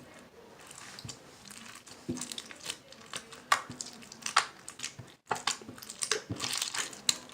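Clear slime being poked and squished by hand, making irregular small clicks and pops.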